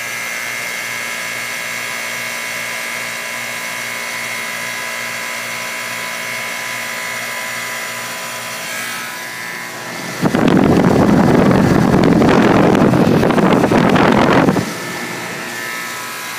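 Guardian air conditioner running with a steady hum and high whine: the odd noise the owner cannot explain. About ten seconds in, a loud rough rushing noise sets in for about four seconds, then stops.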